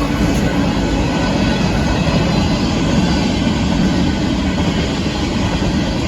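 Freight cars of a Union Pacific grain train rolling past close by: a steady, loud rumble of wheels on the rails.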